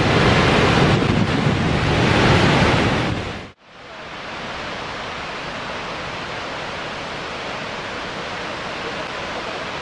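Water rushing from a dam's outlet jets into the river below, a loud, dense roar that cuts off abruptly about three and a half seconds in and gives way to a steadier, quieter rush of water.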